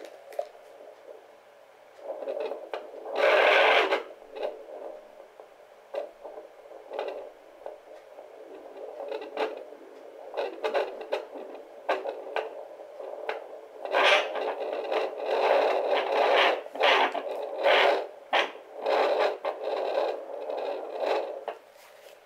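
Pocket fetal Doppler's speaker giving out scratchy static and rubbing noise as the gel-covered probe moves over the belly in search of the fetal heartbeat. In the second half the noise comes in quick, closely spaced pulsing whooshes.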